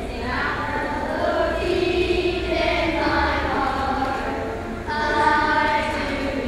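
A group of children singing a song together in held notes, with a new phrase starting about five seconds in.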